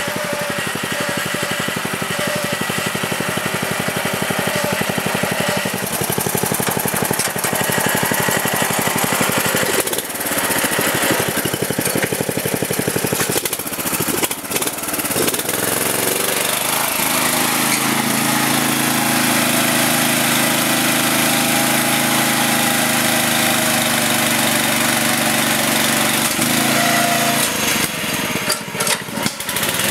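Riding lawn mower's Briggs & Stratton engine running under load, its note rising and falling with short dips through the first half, then settling into a steady drone from about halfway.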